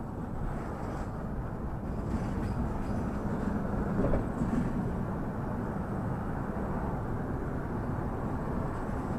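Vehicle driving along: steady engine and road noise, a low rumble with no distinct events, swelling slightly a few seconds in.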